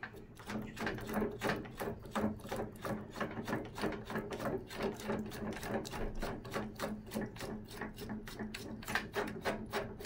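Threaded headset top cap being spun by hand down the steel threads of a tricycle's fork steerer tube: a quick, even run of metal-on-metal rasping, several strokes a second.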